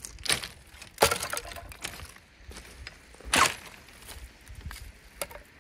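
Footsteps on a shingle beach, rounded pebbles crunching and clacking together underfoot in irregular steps, the loudest about a second in and again past three seconds.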